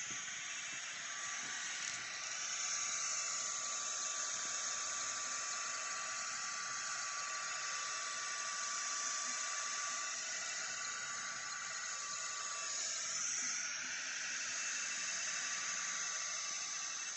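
Sculpfun S30 Pro diode laser engraver running while it engraves plywood: a steady airy hiss from its air assist with a whir from the moving laser head. A thin, steady high whine sits over it and stops about twelve seconds in.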